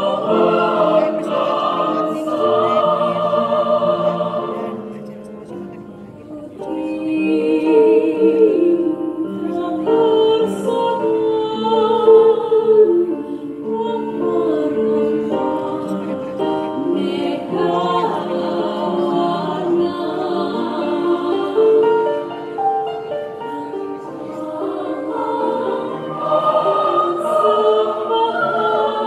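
Mixed choir singing in harmony, holding long chords that change in steps. The singing fades down about five seconds in, then swells back a couple of seconds later.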